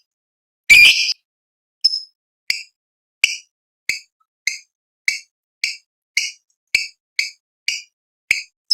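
Lovebird giving one loud shrill call, then a steady run of short, sharp chirps, nearly two a second: the ticking 'ngetik' calls that lovebird keepers know as the lead-in to the long trilling 'ngekek'.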